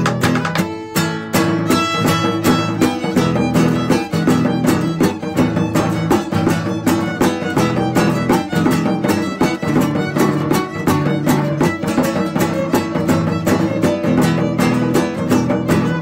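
Instrumental music: a violin melody over rhythmic plucked and strummed guitar, an instrumental break in the song with no singing.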